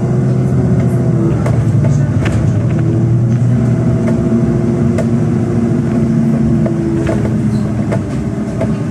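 Inside a NefAZ 5299 city bus under way: the engine hums steadily with road noise, and a few small clicks and rattles from the cabin.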